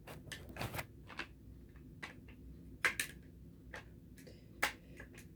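Parts of an AR-22 rifle's upper clicking and knocking as they are handled and fitted back together. There are scattered light clicks, with two sharper ones about three seconds in and near the end.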